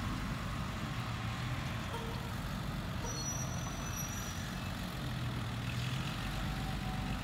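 Heavy diesel engine running steadily at low revs, a low even drone.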